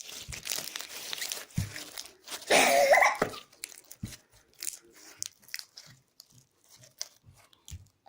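Pink glitter slime squeezed and pressed by hand, giving a run of wet clicking and crackling pops that grow sparser toward the end. About two and a half seconds in there is a louder squeaking sound lasting under a second.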